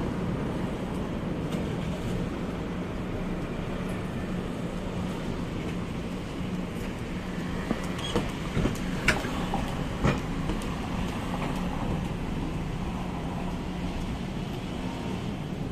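Steady low background hum with a few light clicks about eight to ten seconds in.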